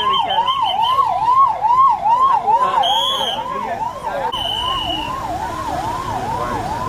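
Vehicle siren in fast yelp mode, sweeping up and down about twice a second. A higher steady tone sounds briefly twice, about three seconds in and again around four and a half seconds in.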